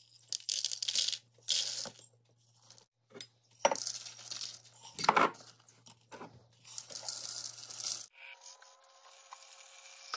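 Dried vegetables poured from glass jars into plastic bowls, rattling in bursts, with a few sharp clinks of glass. About eight seconds in, a kitchen tap starts running steadily into a bowl of peas.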